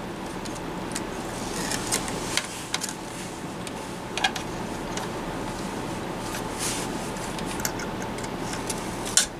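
Small irregular clicks and light scrapes of a small metal pick and fingertips against the radio's circuit boards and chassis as the RAM board is worked loose, over a steady low hum. The sharpest click comes near the end.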